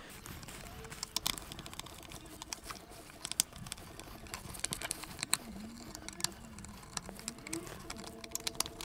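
Screwdriver turning out the small screws that hold the mechanism in a VW Golf Mk2 door mirror housing: light, irregular clicks and scrapes, several sharper ticks scattered throughout.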